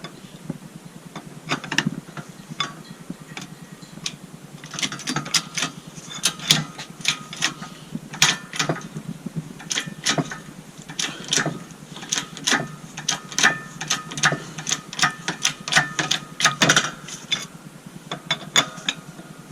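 A press forcing an old bushing out of a Honda EG Civic's front lower control arm, with sockets on either side of the bush: repeated sharp mechanical clicks and knocks, sparse at first and coming thick from about five seconds in until near the end.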